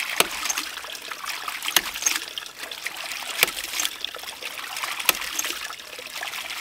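Uncovered brass waste valve of a hydraulic ram pump cycling: it slams shut with a sharp clack four times, about every second and a half, with water gushing and splashing out of it between slams. Each slam is the valve closing on the flow from the drive pipe, which sends water into the pressure tank and on uphill.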